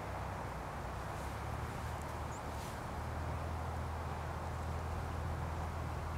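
Steady outdoor background noise with a low hum underneath, and a faint high chirp about two and a half seconds in.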